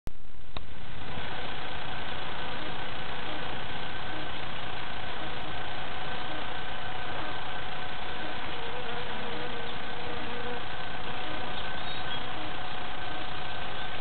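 A steady mechanical hum with a few held tones, unchanging throughout.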